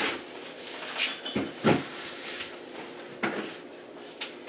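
Kitchen clatter from groceries being put away: a handful of separate knocks and bumps, with the fullest, lowest thud a little under two seconds in, over light rustling.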